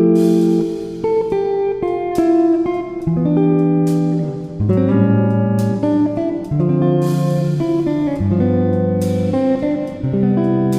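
Background guitar music: strummed chords changing every second or two.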